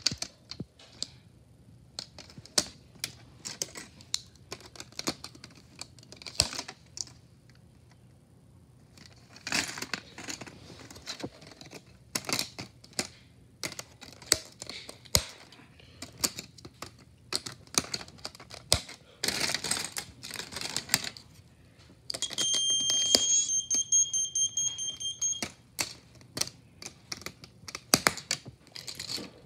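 Snap Circuits plastic parts being snapped onto and off the base grid and handled: many sharp clicks with short bursts of rustling. About three-quarters of the way through, the kit's electronic horn sounds a steady high-pitched tone for about three seconds.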